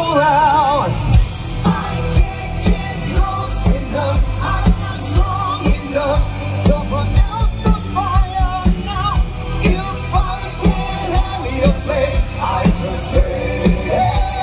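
Live melodic hard rock band playing through a festival PA: drums keeping a steady beat about twice a second under bass, electric guitar and keyboards, with a male lead vocal on top.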